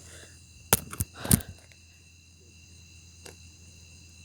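A steady high chorus of insects, with three sharp clicks or knocks close together about a second in and a fainter one a little past three seconds.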